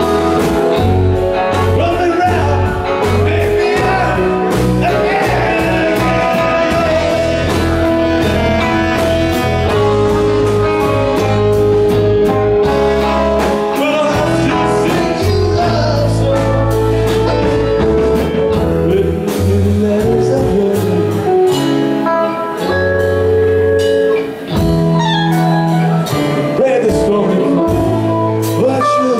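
Live rock band playing: electric guitars, bass, keyboards and drums, with a man singing lead.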